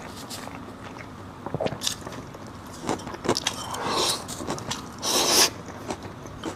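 Close-up eating sounds: biting and chewing, with crunchy clicks and short scraping bursts, busiest in the second half.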